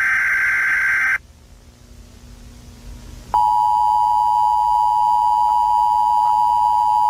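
Emergency Alert System tones: a final burst of screechy digital header data lasting about a second, a short pause, then the steady two-tone attention signal coming on about three seconds in and holding.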